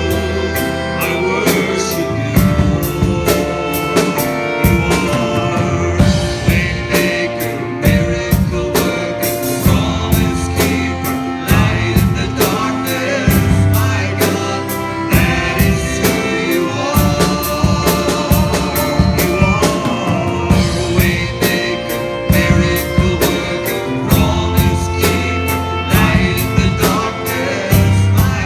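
Worship band music with a steady drum-kit beat, guitar and a sung melody.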